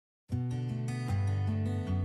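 Intro music: a tune with a steady bass line, starting about a quarter of a second in after a moment of silence.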